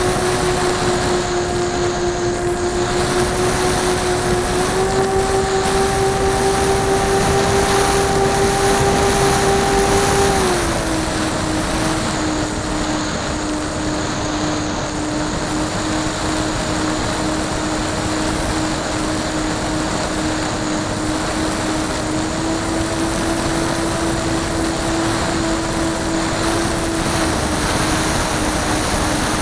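Radio-controlled model airplane's motor and propeller heard from on board in flight: a steady droning whine over rushing wind noise. The pitch steps up about five seconds in, drops clearly at about ten seconds, then rises slightly again and falls back near the end.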